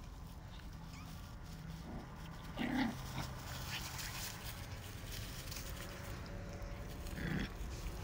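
English bulldog puppies whimpering: two short cries, the first louder about two and a half seconds in, the second near the end.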